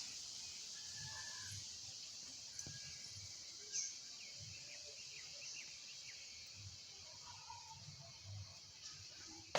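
Faint outdoor nature ambience: a steady high-pitched hiss with scattered short, faint bird chirps and calls, and one brief tick about four seconds in.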